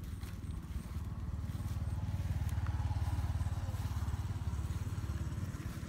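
A low engine rumble with a fast, even pulse that swells to its loudest about halfway through, then eases off.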